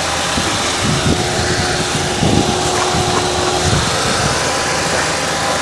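2012 Chevrolet Sonic engine idling steadily, heard close up in the open engine bay, running after its noisy water pump was replaced.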